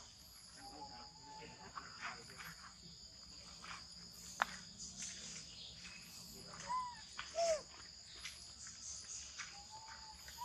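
Steady high-pitched drone of insects, with a few short chirping calls over it, the loudest two about seven seconds in. A single sharp click about four and a half seconds in.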